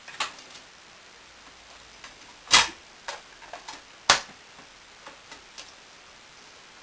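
Handling clicks and knocks on a computer power supply and its cooling fan as the fan is fitted. There are a few light clicks and two sharp, louder knocks about a second and a half apart, near the middle.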